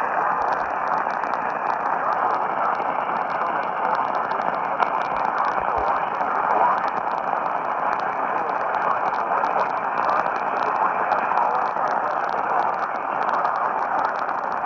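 Radio receiver static: a steady hiss with a scatter of faint crackles, with no voice or tones coming through.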